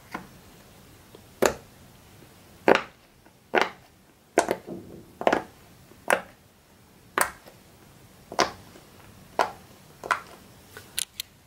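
Silicone pop-it fidget toy having its bubbles pushed through one at a time by fingertips: a dozen short separate pops, about one a second, with two in quick succession near the end.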